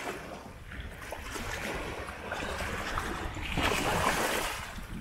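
Water splashing and sloshing around a small boat on the river, an uneven wash that swells louder a little past halfway.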